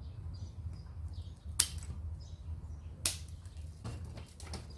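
Two sharp clicks, about one and a half seconds apart, then a few fainter ticks as the opened submersible pump's top housing, wiring and cutters are handled. Small birds chirp in the background over a low steady hum.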